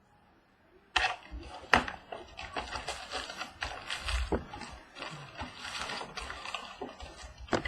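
Plastic wrapping and cardboard of a trading card box crinkling and rustling as it is torn open, starting about a second in with a dense run of crackles and sharp clicks.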